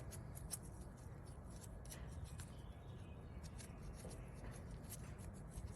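Faint scattered clicks and rubbing of small plastic parts being handled while a new canister purge valve is put together.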